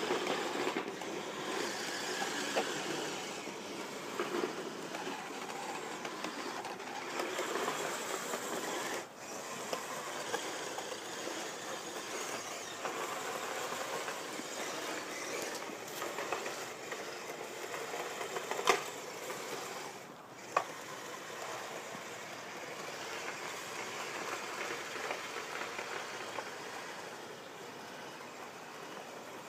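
Electric drive motors, gearing and tracks of radio-controlled snow groomers whirring steadily and clattering as they run through snow. There are two sharp clicks about two-thirds of the way through.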